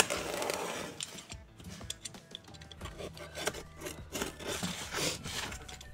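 Snap-off utility knife blade slicing through packing tape and cardboard on a parcel: scratchy, rasping cutting strokes with small clicks and taps as the blade is drawn along the seam.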